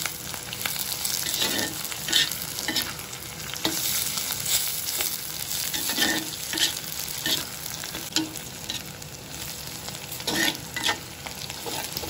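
Sliced onions, chillies and spices sizzling in hot oil in a clay pot while being sautéed. A perforated steel spatula stirs them, with irregular scrapes and knocks against the pot.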